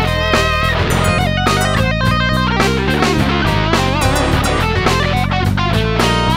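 Stratocaster-style electric guitar played lead, fast picked notes with some bent and wavering ones, over a steady bass line and drums.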